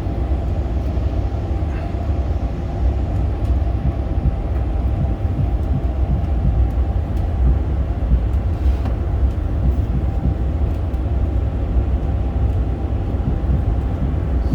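Steady, loud low rumble of an airliner's engines and airflow heard on the flight deck, with a faint steady hum above it.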